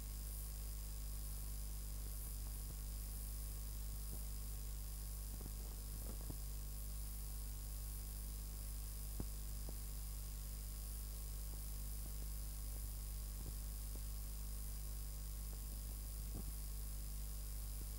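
Steady low electrical hum with an even hiss and two faint high-pitched whines: the noise floor of a blank stretch of an old recording. A few faint clicks, the clearest about halfway through.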